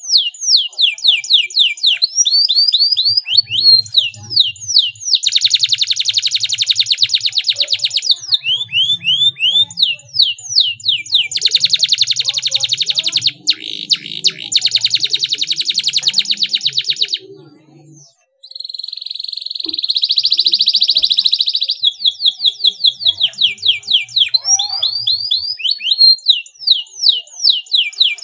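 Domestic canary singing: runs of quick downward-sliding whistled notes, and twice a long, very fast, tight roll lasting several seconds. After a brief break about two-thirds in comes a short buzzy trill, then the sliding whistles again.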